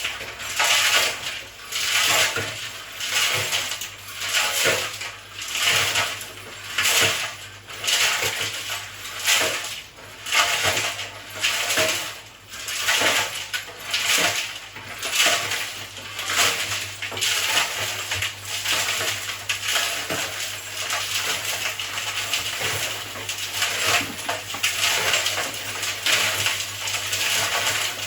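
Nuts and bolts tumbling in a turning mixer drum with a bit of oil, clattering loudly like a load of coins and metal scrap. The clatter swells about once a second for the first half, then settles into a steadier crashing, over a low steady motor hum.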